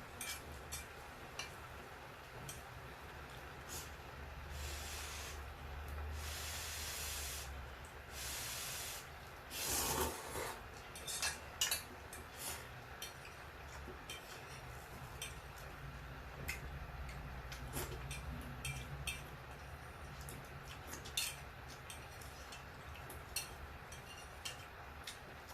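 Close-up eating sounds: mouth noises and chewing, with many small clicks and taps scattered throughout, several short hissy stretches in the first third, and a louder cluster of clicks a little before the middle.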